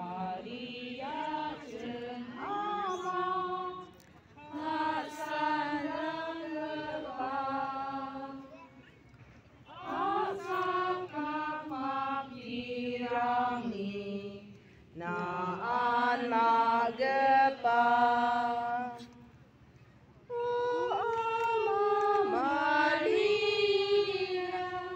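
Voices singing a devotional chant or hymn, in phrases of about four seconds with short pauses between them.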